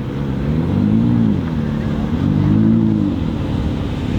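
Audi R8 V10 Performance's V10 engine with an aftermarket Capristo exhaust, revved twice. Each rev rises in pitch and falls back over about a second.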